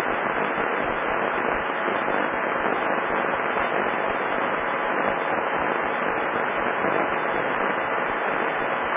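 Steady radio static from an air traffic control frequency recording: an even, thin rushing hiss that holds at one level throughout.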